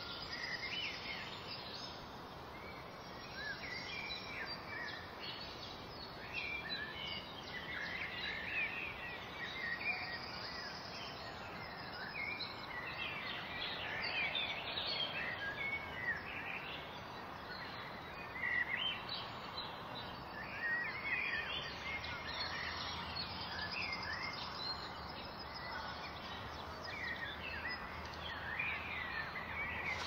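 Several songbirds chirping and singing, with many short overlapping calls throughout, over a steady outdoor background hiss.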